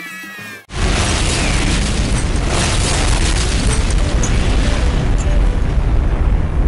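Explosion sound effect: a sudden loud blast about a second in, then a continuous deep rumble that keeps going.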